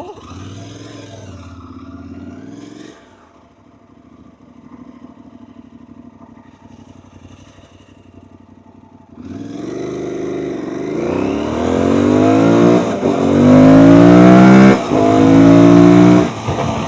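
Aprilia Tuareg 660 parallel-twin engine breathing through an Akrapovic full exhaust system. It runs quietly for several seconds, then revs up hard with the pitch climbing, dropping back twice the way it does at upshifts, and easing off near the end.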